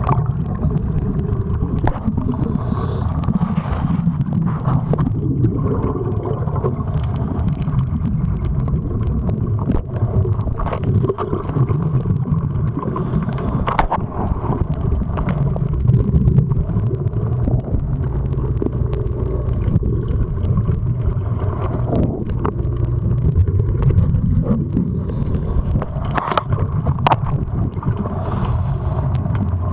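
Underwater noise picked up by a camera in a waterproof housing: a steady low rumble, with scattered clicks and knocks, the loudest a few near the end.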